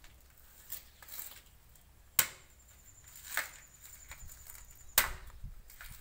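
Machete chopping into a bunch of palmyra palm fruits: two sharp chops about three seconds apart, with a few lighter knocks between them.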